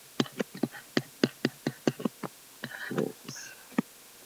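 Pen stylus clicking and scratching against a tablet PC screen while handwriting: a quick run of sharp clicks, several a second, thinning out after about two seconds, then a brief muffled sound about three seconds in.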